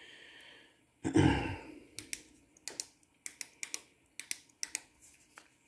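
A loud thump about a second in, then a dozen or so sharp, irregular mechanical clicks over about three seconds from the piano-key transport controls of a Marantz Model 1810 cassette deck being pressed.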